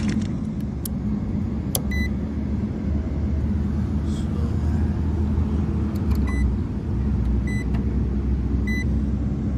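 Steady low mechanical rumble and hum, with short high beeps: one about two seconds in, then a regular beep about every second and a bit from about six seconds in.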